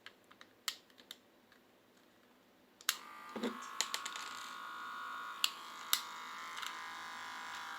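A few light clicks, then about three seconds in a small electric motor starts and runs steadily with a thin whirr, with occasional clicks over it. This is likely the cordless hair clipper being run as a test during its repair.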